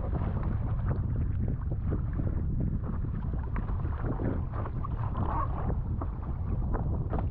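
Strong wind buffeting the microphone with a steady low rumble, while water splashes and slaps irregularly against a paddle board.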